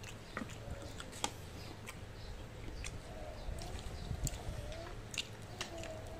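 Close chewing and biting on soy-sauce-braised chicken feet, with sharp wet mouth clicks and smacks scattered through. A faint wavering tone comes in about halfway.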